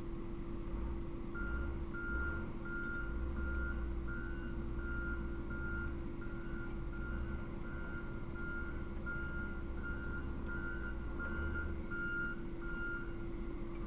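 Vehicle reversing alarm beeping at an even pace, about one and a half beeps a second, starting about a second and a half in and stopping shortly before the end, over a steady low hum and rumble.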